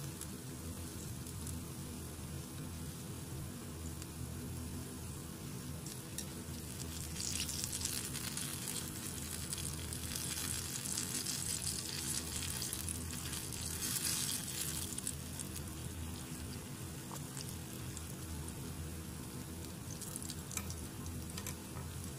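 Battered fritters deep-frying in hot oil in a pan: a steady sizzle that grows louder for several seconds in the middle.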